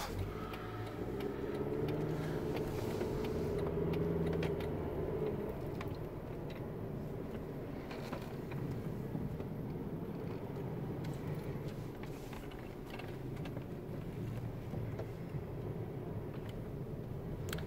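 Car engine heard from inside the cabin as the car pulls away after a turn, its pitch rising over the first few seconds, then settling into steady engine and tyre noise on the road.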